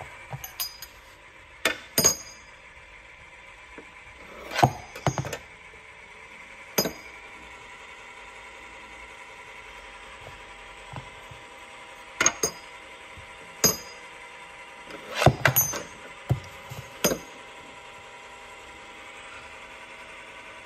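Burstfire Gen 2 case annealing machine running with a .50 BMG wheel kit: a steady machine hum under irregular, sharp metallic clinks of brass cases knocking as they feed through. There are about a dozen clinks, with a close cluster about three-quarters of the way through and nothing after that.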